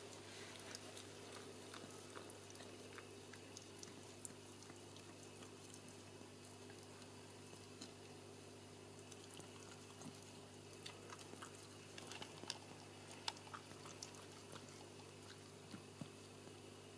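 Faint wet clicks and smacks of a Shetland sheepdog licking during whelping, over a steady low hum. The clicks come irregularly and are loudest around two-thirds of the way through.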